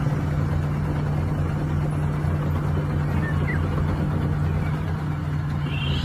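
Large dump truck's engine running steadily at a constant pitch while the truck tips its load with its tipper bed raised high.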